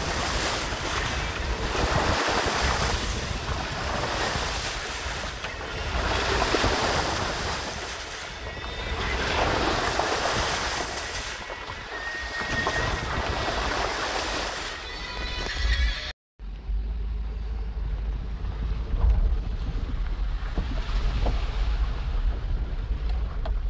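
Chevrolet vehicle driving off-road through muddy puddles: water and mud splashing from the tyres and air rushing past the open window, coming in surges. After a brief cut about 16 s in, a steadier low rumble of the engine and tyres heard from inside the cab.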